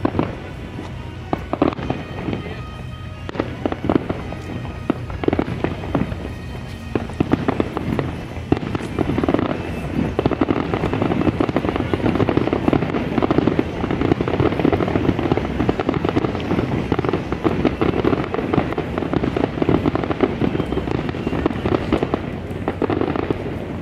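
Aerial fireworks exploding one after another in sharp bangs, building to a dense, continuous barrage of rapid pops and crackling through the middle, which dies away just before the end.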